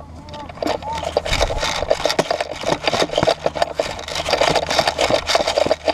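Footsteps crunching on dry, hard dirt with gear and the carried rifle rattling: a dense, irregular run of short clicks and knocks over a steady low hum.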